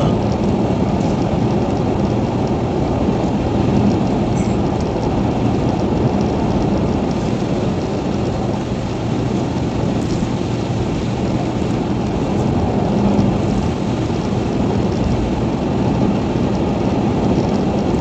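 Steady rumble of tyres and engine heard from inside a car driving at highway speed on a partly wet road.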